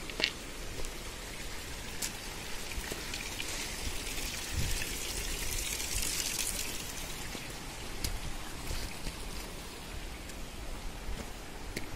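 Water trickling down a rock face and over stones, a steady hiss that swells around the middle, with scattered footsteps on a stony path.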